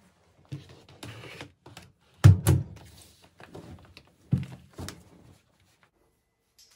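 Household handling noises: a run of knocks and thuds with rustling between them, the loudest two close together about two seconds in and two more a couple of seconds later.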